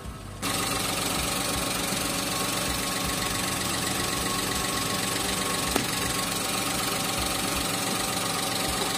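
Daihatsu Sigra's engine idling steadily, heard from beneath the car. It comes in suddenly about half a second in, with one brief tap a little past halfway.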